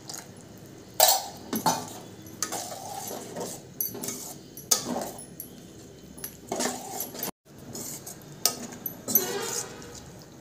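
Steel spatula scraping and clinking against a stainless steel kadai in irregular strokes as gram flour batter is stirred into frying onions and tomatoes.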